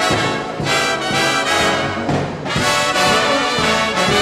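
Swing big-band brass section, trumpets and trombones, playing a run of loud held chords: the instrumental close of an up-tempo song after the vocal has finished.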